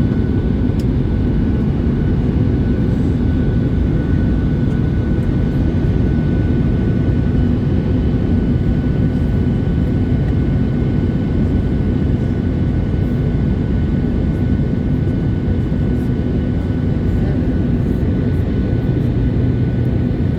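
Steady low roar of an airliner cabin in flight, engine and airflow noise with a faint steady whine above it.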